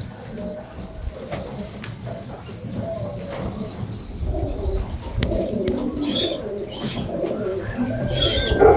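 A flock of white homing pigeons cooing, low wavering coos overlapping and growing busier in the second half, with a few light clicks.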